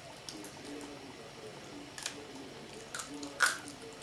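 Husky puppy chewing and crunching a cabbage leaf: a run of separate short bites, the loudest a little after three seconds in.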